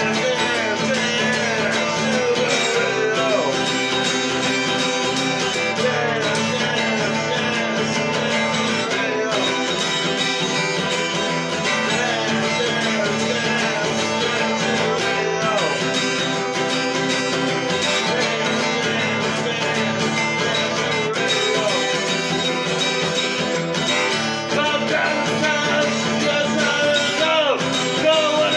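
A man singing while strumming an acoustic guitar, with steady strummed chords under his voice.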